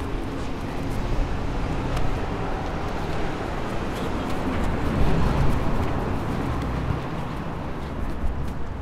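City street ambience: a steady rumble of traffic.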